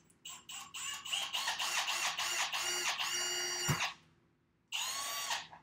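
Cordless drill boring a hole in a plastic bottle cap: the trigger is pulsed in short bursts at first, then the drill runs steadily with a whine for about three seconds and stops, followed by a second short run near the end.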